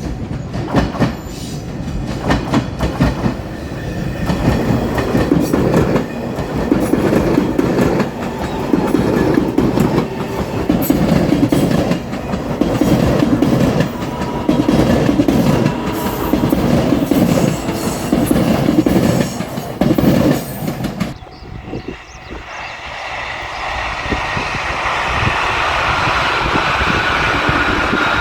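JR Shikoku 8000 series Anpanman train running on the rails, its wheels clacking over the rail joints in a steady rhythm. About 21 seconds in the clacking stops abruptly, giving way to a smoother running hum that grows louder again, with a faint whining tone.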